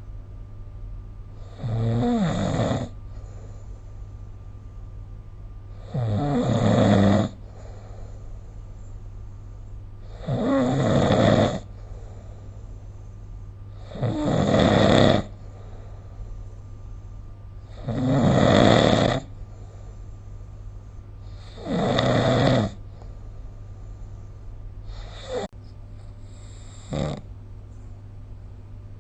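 A sleeping person snoring in a steady rhythm, one snore about every four seconds, each lasting about a second. Near the end the rhythm breaks into two short, fainter sounds. A steady low hum runs underneath.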